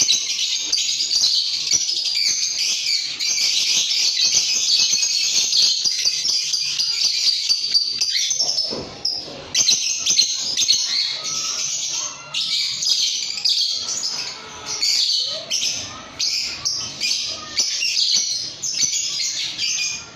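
Caged lovebirds chattering with a dense, unbroken stream of rapid, high-pitched chirps. About halfway through the chatter breaks into shorter bursts with a few lower calls.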